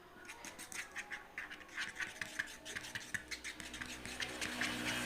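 A stirrer scraping and tapping against the container while glue and liquid detergent are stirred together into slime, in many short irregular strokes.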